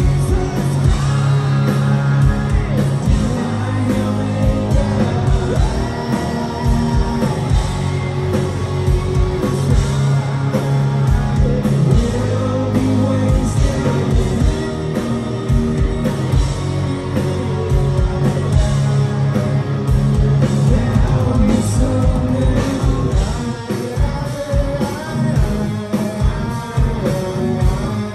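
A live rock band playing: distorted electric guitars, bass and drums with a sung lead vocal, loud and dense throughout, recorded from the audience.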